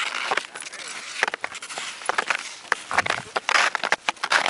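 Footsteps crunching on crusted snow: a run of irregular crunches and scrapes, heaviest in the last second and a half.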